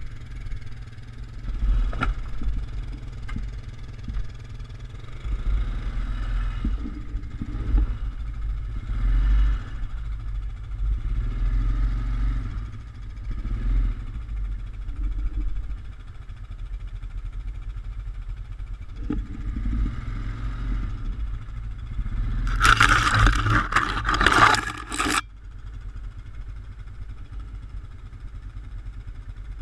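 ATV engine running at low trail speed, rising and falling with the throttle, with occasional knocks from the machine jolting over the rough trail. Near the end comes a loud scraping clatter lasting about two and a half seconds that cuts off suddenly.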